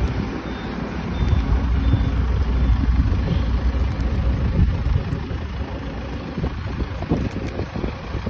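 Diesel engine of a semi-truck tractor running close by with a steady low rumble as the truck moves slowly.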